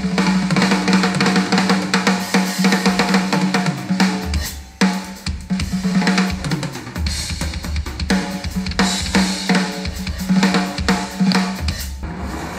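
Drum kit playing fast, with snare, bass drum, hi-hats and crash cymbals over a steady low backing note, played back through a Polk MagniFi MAX soundbar and its subwoofer. The drumming breaks off briefly just before five seconds in and stops near the end.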